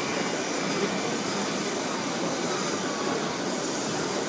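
Wood lathe running, with a turning tool cutting the spinning wooden blank of a chisel handle: a steady rushing noise that does not change.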